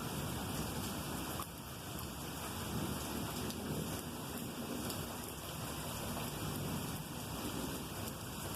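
Steady rain falling and pattering, with low rolling thunder rumbling underneath.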